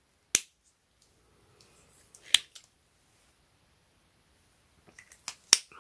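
Sharp plastic clicks from Pilot Frixion Light highlighter pens being handled. There is one loud click about a third of a second in, another about two seconds later with faint ticks around it, and a few lighter clicks near the end.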